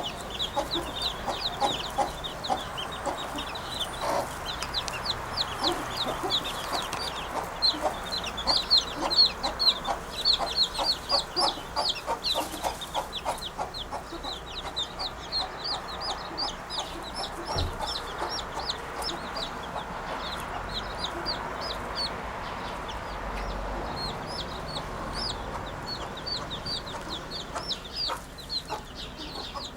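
Birds chirping: a dense, continuous run of short, high chirps with lower clucking notes beneath, busiest in the first half.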